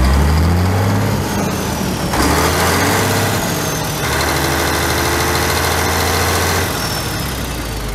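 Renault Magnum 440 truck's Mack-built diesel engine being revved from idle. It climbs in steps about two and four seconds in, holds at higher revs, and drops back near the end.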